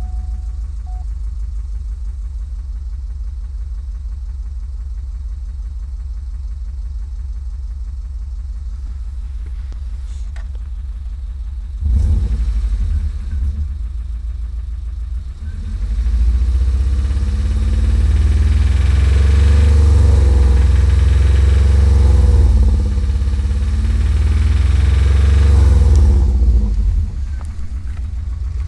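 2000 Subaru Impreza 2.5RS's 2.5-litre flat-four idling with a steady rhythmic knock, then revved about twelve seconds in, held at higher revs, and let fall back to idle near the end. The knock is one the owner can't place between rod knock and piston slap.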